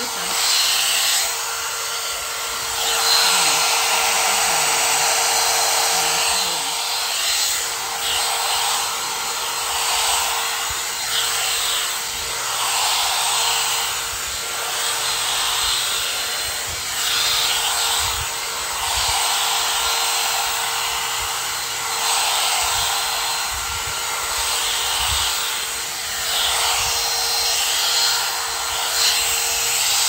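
One-step hot air brush (hair dryer brush) running steadily: a rush of air over a steady hum, swelling and easing every few seconds as the brush is drawn through wet hair.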